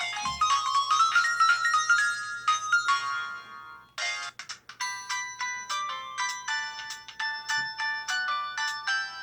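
Built-in ringtone melodies of a 2007 Samsung Anycall SPH-W2500 mobile phone. One electronic tune ends about four seconds in, and a second, quicker tune of short repeated notes starts straight after it.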